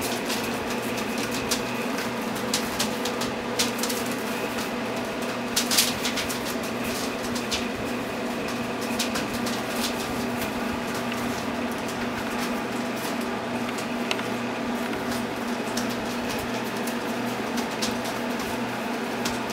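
Puppies' paws scuffling on newspaper, giving scattered light clicks and paper crackles, a few louder ones about five to six seconds in, over a steady low electrical hum.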